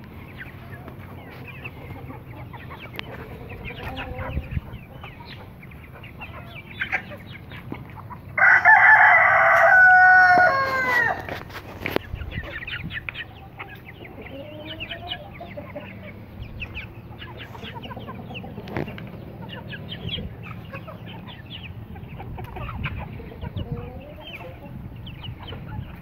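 Free-range chickens clucking throughout, with one loud rooster crow of about three seconds starting about eight seconds in, its end falling in pitch.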